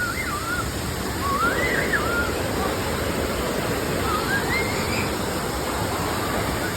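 A strong waterfall rushing steadily, with faint wavering voices over the noise of the water.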